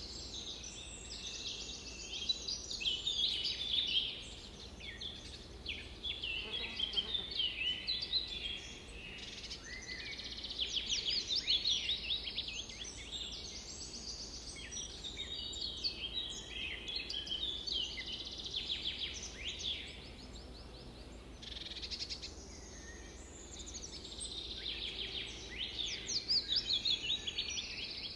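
Songbirds chirping and trilling, many quick calls and fast trills overlapping without pause.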